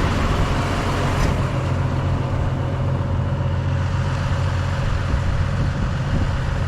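Farm tractor engine running steadily with a constant low hum.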